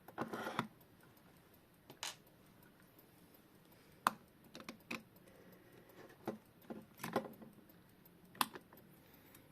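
Irregular small clicks and taps of hand tools and small parts as a battery-less quartz clock movement is taken apart. The sharpest click comes about four seconds in.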